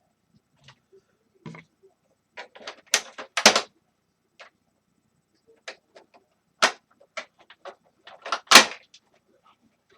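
Irregular clicks, knocks and scraping rattles of parts and hand tools being worked while a small electric space heater is taken apart, with the loudest rattles about three and a half and eight and a half seconds in.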